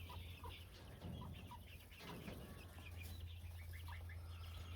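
Chickens clucking faintly, with short calls scattered throughout over a low steady background hum.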